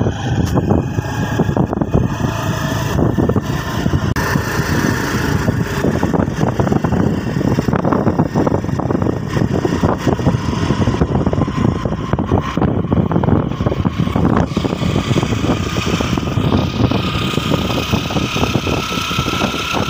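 Steady road and wind noise heard from inside a moving road vehicle, with its engine running. A faint whine slowly rises in pitch over the last several seconds.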